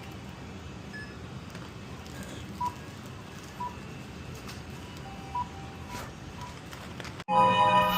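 Checkout barcode scanner beeping as items are scanned: short single beeps a second or two apart over a steady store hum. Near the end, loud music cuts in suddenly.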